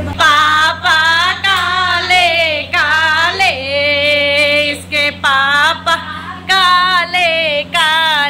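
Women singing a Hindi folk birth song (jachcha geet) without instruments. A lead voice sings phrases with wavering pitch and holds one long note near the middle.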